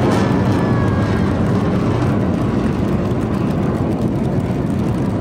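Steady, loud low rumble of aircraft engines overhead.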